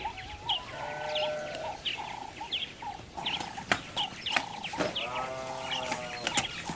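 Chickens clucking, with small birds chirping over and over and a few sharp clicks.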